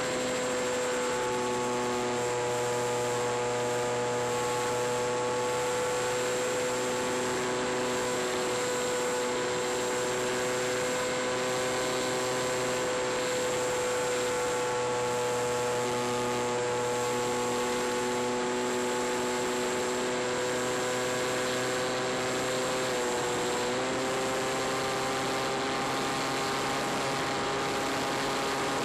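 Skywalker RC plane's motor and propeller running at steady cruise throttle: an even, pitched whine over a wash of rushing air. About 23 seconds in, the pitch dips briefly, then settles slightly higher. A thin, steady high whine runs underneath.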